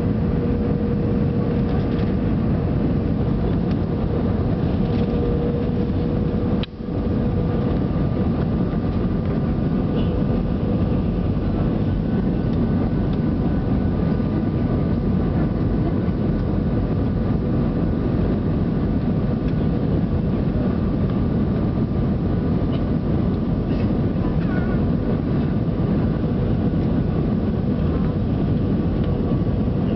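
Jet airliner cabin noise heard from inside during approach: a steady rush of engine and airflow noise with a steady hum running through it. The level dips briefly about seven seconds in.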